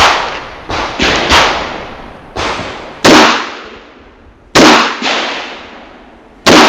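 Springfield Armory EMP, a compact 1911-style pistol, firing a string of about nine shots at uneven spacing, some in quick pairs and others a second or more apart, each followed by a short echo. Some shots are noticeably louder than others.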